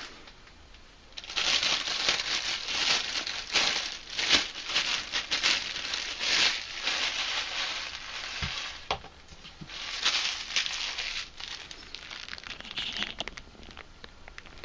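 Thin plastic packaging crinkling and rustling as a power tool is unwrapped by hand. It comes in two spells, a long one from about a second in and a shorter one after a brief lull, with a couple of light knocks in between.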